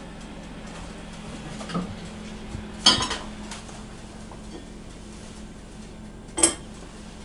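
Hot enamelled cast-iron pot set down on a gas stove's iron grate with a loud clank and a short ring about three seconds in; near the end its heavy lid is put down with a second, sharper clank. A low steady hum lies underneath.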